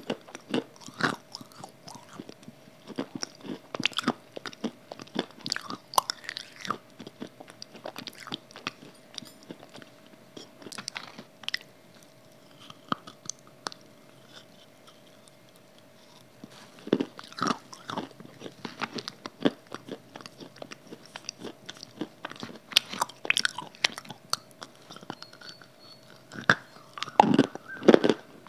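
Close-miked biting and chewing of a hard grey block: sharp crunchy cracks as pieces are bitten off and chewed, sparser and softer in the middle, then a burst of loud cracks near the end. A faint steady hum runs underneath until shortly before the end.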